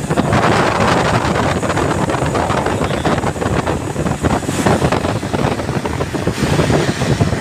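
Steady, loud mechanical rumble of running machinery or an engine, with wind buffeting the microphone.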